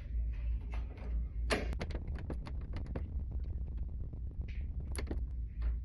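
Metal clicking from a lock being picked on a vending machine door: a quick run of sharp clicks about a second and a half in, then scattered clicks and one louder click near the end, over a steady low hum.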